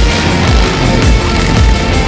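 Loud electronic music with a heavy, deep beat about twice a second.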